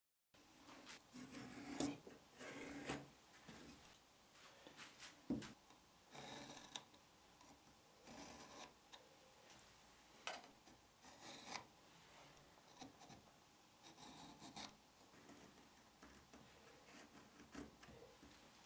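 Faint handling sounds: rubbing and scraping of a plastic shop-vac fitting and hose end on a pine block and a pencil tracing around them, with a few light knocks.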